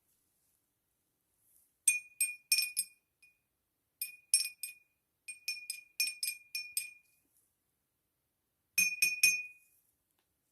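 A spoon striking the inside of a glass in four quick runs of clinks, as in stirring a drink. Each strike leaves a short, clear ringing note from the glass.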